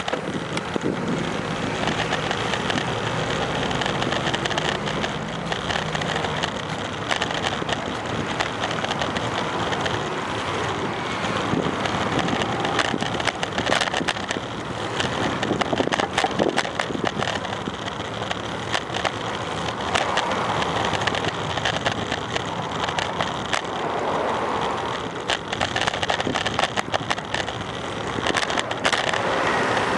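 Bicycle rolling along a paved sidewalk: steady tyre and riding noise with frequent small clicks and rattles from bumps in the pavement, over road traffic.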